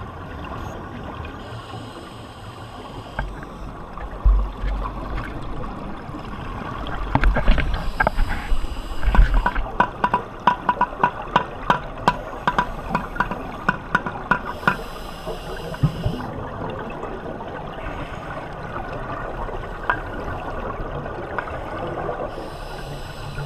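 Underwater sound through a camera housing: a scuba diver's regulator exhaling bursts of bubbles every six or seven seconds over a muffled water hiss. Sharp clicks come a few times a second, thickest in the middle.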